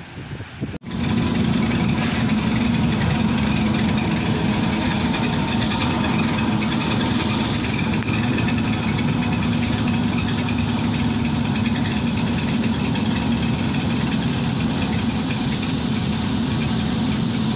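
Steady running noise inside a trolleybus cabin: a loud low hum with several steady higher tones over a hiss. It starts abruptly about a second in.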